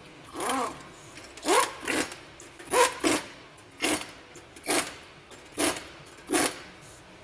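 A rhythmic series of about ten short squeaks with rubbing, roughly one every 0.8 s, several of them bending up or down in pitch.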